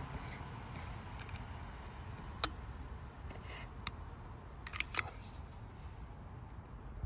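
Handling of a plastic blower motor housing: a few sharp clicks and taps, with a brief hiss about three seconds in as lubricant is sprayed through a straw into the motor's dry-sounding shaft bearing.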